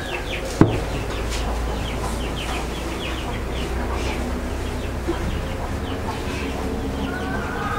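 Chickens clucking in the background throughout, with a single sharp knock about half a second in.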